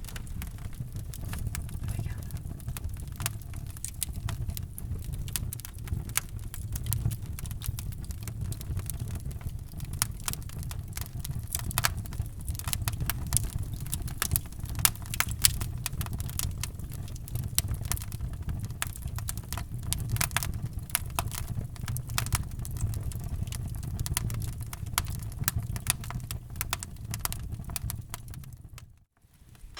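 Wood fire crackling in a fireplace: dense, irregular pops and snaps over a steady low rumble, cutting out briefly near the end.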